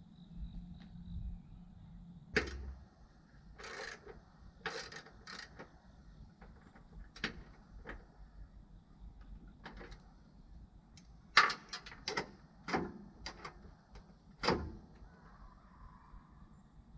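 Irregular metallic clicks, knocks and scrapes of hand tools and brake parts on a lawn tractor mower deck as a blade brake is reinstalled. The loudest knocks come near the middle and about three quarters of the way through.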